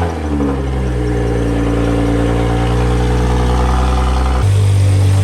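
BMW E92's engine just after starting, the revs settling from the start-up flare into a steady idle. About four seconds in, the sound changes abruptly to a lower, louder running note.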